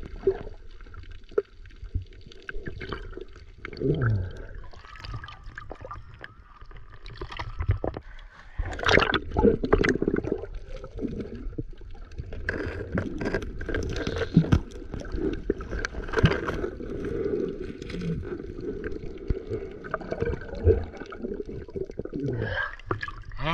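Muffled underwater noise heard through a camera held below the surface: water moving and gurgling, with many small clicks and knocks throughout, growing louder about a third of the way in.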